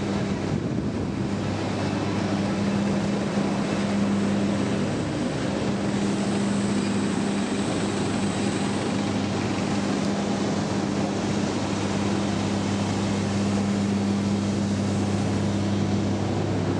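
Steady jet aircraft noise on an airport apron: an even rush with a constant low hum underneath.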